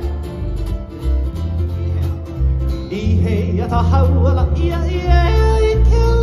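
Live Hawaiian band music for hula: a singing voice with swooping pitch over strummed ukulele and guitar and deep bass notes.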